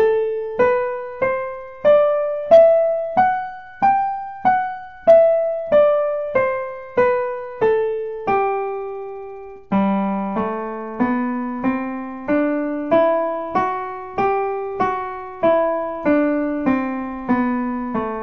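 Yamaha digital keyboard in a piano voice playing a G major scale study one note at a time at an even, slow pace. The right hand plays a scale up one octave and back down; about ten seconds in, the left hand plays it again an octave lower, up and back down.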